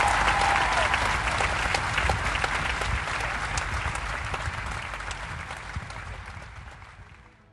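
Crowd applauding, a dense patter of many clapping hands that fades out steadily until it is nearly silent near the end.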